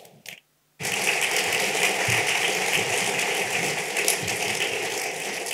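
Audience applauding: dense clapping starts suddenly about a second in and carries on steadily.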